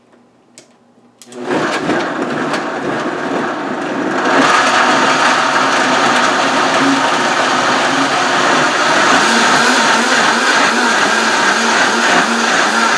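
Countertop blender starting up about a second and a half in and running loud and steady, pureeing chopped garlic, ginger and turmeric in water. About four seconds in the sound gets louder and brighter.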